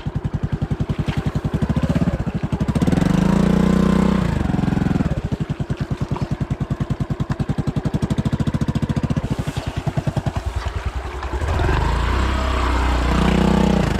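Small vehicle engine running with a fast, even firing beat, pulling harder and growing louder twice while it is driven through flooded ground.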